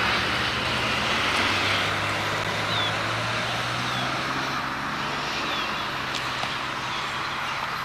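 Diesel locomotive engine running as the train comes around the curve: a low steady hum under a broad hiss, the hum fading after about four seconds.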